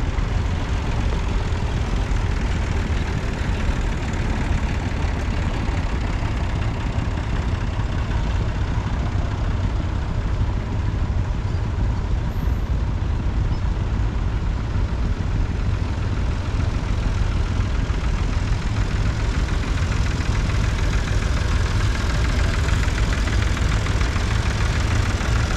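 Vintage farm tractor engines running steadily at low revs as several tractors wait at a junction. A yellow tractor drawing closer makes the sound a little louder near the end.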